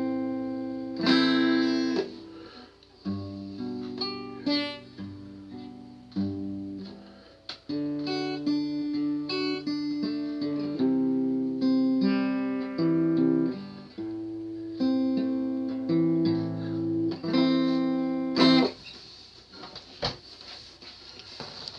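Acoustic guitar played solo, mixing strummed chords with picked melody notes. The last chord sounds about three seconds before the end, and only faint hiss and small clicks follow.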